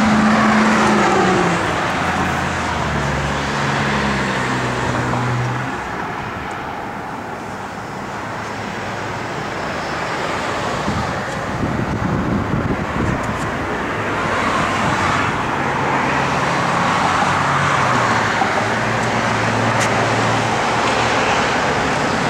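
Passing road traffic: vehicles driving by, with low engine tones that change pitch. It eases off about six seconds in and builds again later.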